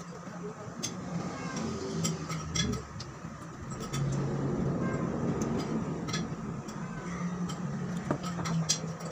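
Close-up eating sounds: chewing with sharp, irregular mouth clicks and lip smacks, over a steady low hum that swells about four seconds in.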